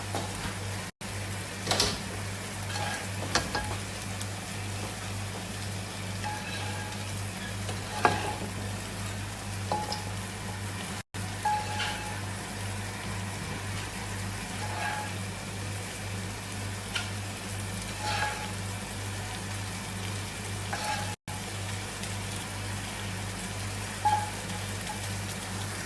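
Steady sizzling of hot oil and food in a kitchen, with light clinks and taps of a utensil against cookware every few seconds. A steady low electrical hum runs underneath.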